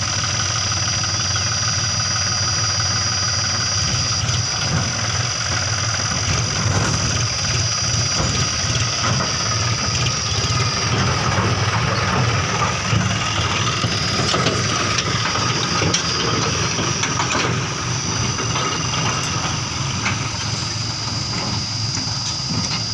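Tractor diesel engine running at a steady speed while the hydraulic tipping trolley is raised to dump its load of mud. A steady high-pitched whine runs alongside it.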